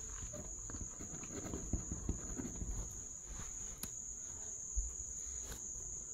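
Quiet room tone under a steady high-pitched tone, with a few faint scratches and ticks from a pen writing on paper in the first few seconds.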